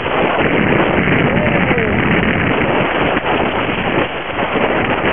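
Wind rushing over the microphone and water splashing and hissing along the hull of a small sailboat moving fast through spray.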